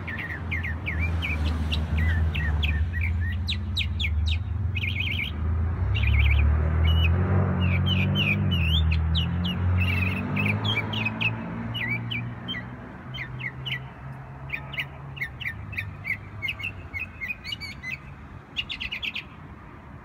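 Small songbirds chirping in a tree, in quick runs of short high chirps. Underneath, a low motor-vehicle engine rumble swells past in the middle and fades away toward the end.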